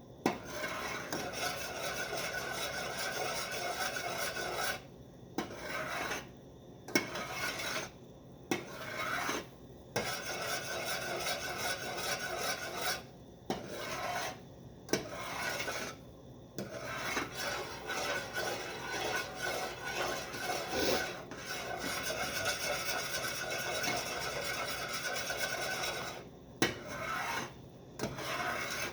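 A spoon scraping steadily around the bottom and corners of a saucepan of boiling fudge mixture, in continuous stirring broken by several brief pauses. The constant stirring keeps the sugar mixture from scorching at the boil.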